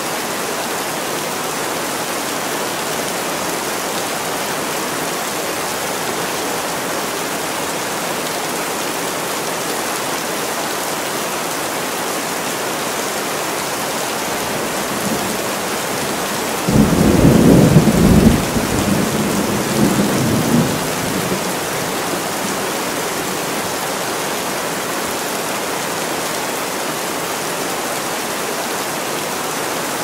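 Steady rain falling in a forest, with a roll of thunder that breaks in suddenly a little past halfway and rumbles low for about five seconds before fading back under the rain.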